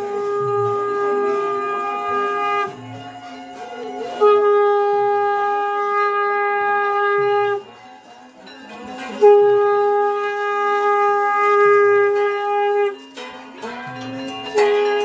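Conch shell (shankha) blown in long, steady blasts of about three seconds each, with short breaks between them and another blast starting near the end. It is the customary conch call that welcomes a nagar sankirtan procession to a house.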